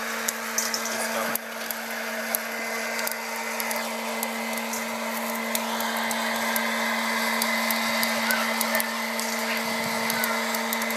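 Hot-air popcorn popper roasting coffee beans: its fan motor runs steadily with a hum and a rush of hot air, with scattered sharp clicks over it.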